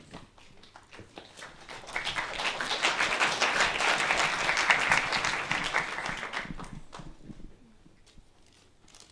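Audience applauding: a few scattered claps, then the clapping swells about two seconds in and dies away a couple of seconds before the end.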